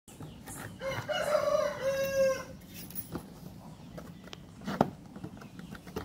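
A rooster crows once, about a second in, in a call lasting about a second and a half. A single sharp knock follows near the end.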